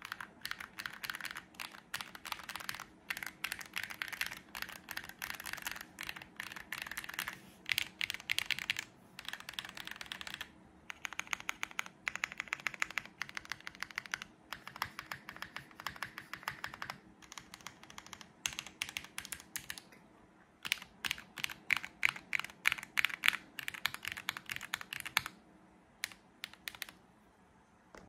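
Typing on a KBDFans Tiger80 mechanical keyboard with lubed Ashkeebs Auralite switches, a polycarbonate plate, PBT keycaps and no foam inside. Fast runs of keystrokes come in bursts broken by short pauses, and the last few strokes fall about a second before the end.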